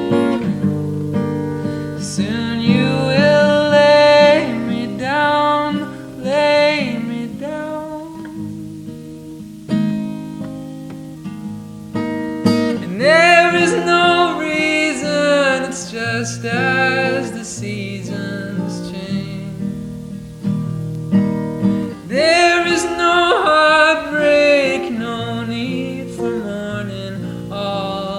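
Background music: a song with acoustic guitar and a sung vocal.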